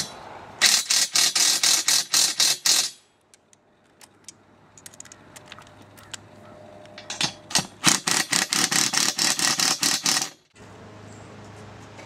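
Cordless impact driver hammering as it tightens the bolts that clamp aluminium racking rails to the roof-mount L-feet, in two bursts of about two to three seconds each, the second stopping abruptly about ten seconds in.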